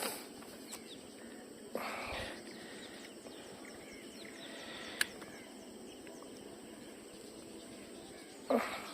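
Outdoor riverside ambience with faint birds and insects. A short rushing noise comes about two seconds in, a single sharp click about five seconds in, and another brief rush near the end.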